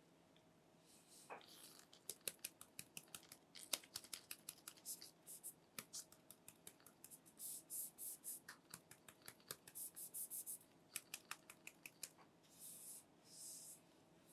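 Quick, irregular run of light clicks and taps from handling a smartphone and its packaging, with a few short bursts of rustling.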